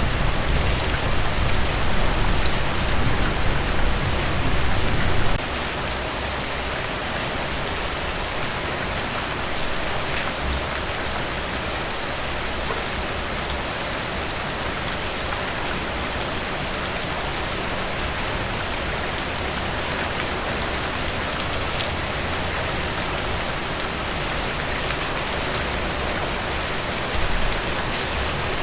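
Heavy rain falling steadily. A low rumble under it drops away suddenly about five seconds in and comes back briefly near the end.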